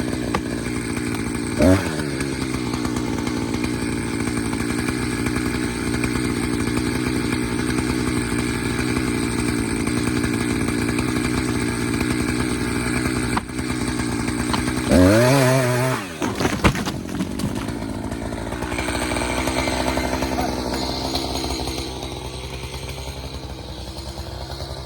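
Chainsaw running steadily as it cuts into a dead snag, with a brief rev about two seconds in and a sharp rev that climbs and falls about fifteen seconds in.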